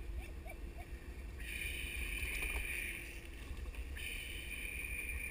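Skateboard wheels rolling over asphalt with a steady low rumble, carrying three riders. A higher whine comes in twice, about a second and a half in and again about four seconds in.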